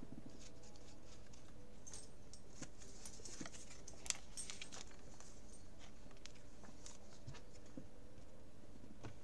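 Faint rustling and light scattered clicks of trading cards being handled on a desk, with one sharper click about four seconds in.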